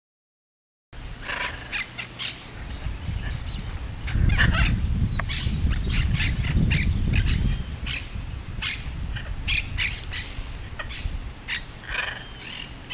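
Hyacinth macaws giving many short calls in quick succession, starting about a second in. A low rumble runs under them from about four to seven and a half seconds in and is the loudest sound there.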